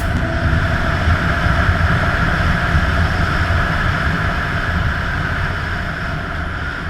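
BMW R 1250 GS Adventure's boxer-twin engine running steadily under way, under a continuous rush of wind and road noise.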